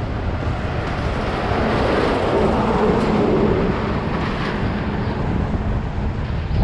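A flatbed tow truck passing in the oncoming lane: its engine noise swells to a peak a few seconds in and then eases off. Under it is steady wind rumble on a bicycle-mounted microphone.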